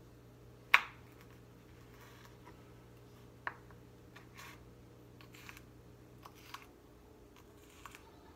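Kitchen knife cutting vegetables on a plastic cutting board: a sharp knock about a second in, another at about three and a half seconds, and a few lighter taps, over a faint steady hum.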